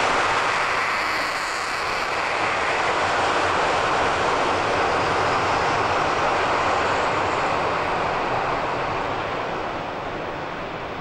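Panavia Tornado's twin RB199 turbofans on full afterburner during the takeoff roll: a loud, steady jet roar that fades over the last few seconds as the jet pulls away.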